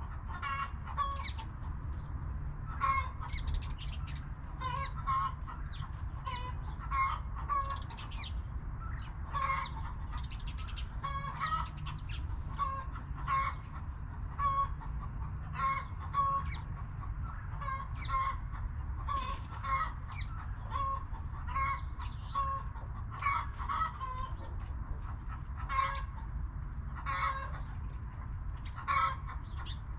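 Backyard hens clucking: short calls repeated every second or so, over a steady low rumble.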